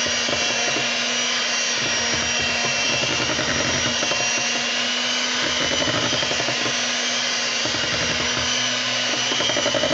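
Electric hand mixer running steadily at a constant speed, its beaters mixing pound cake batter in a metal bowl.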